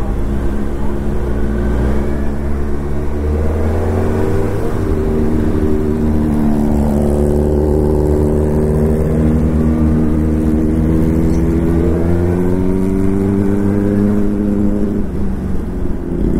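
Suzuki Hayabusa's inline-four engine running steadily under way, its note rising and falling gently and easing off near the end.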